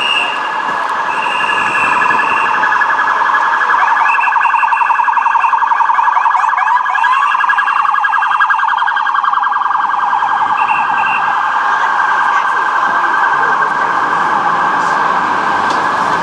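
Police sirens sounding together: a fast warbling yelp runs steadily, with a higher tone coming and going and short rising sweeps from another siren about halfway through.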